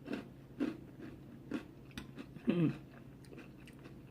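Chewing and mouth noises of someone eating chunky canned soup: a handful of short, soft sounds spaced out, with a brief pitched mouth sound about two and a half seconds in.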